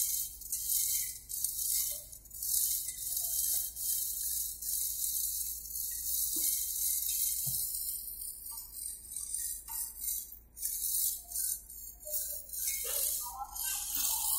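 Chorus of cicadas in the surrounding trees: a high-pitched buzzing that swells and fades in repeated waves, with faint voices beneath it.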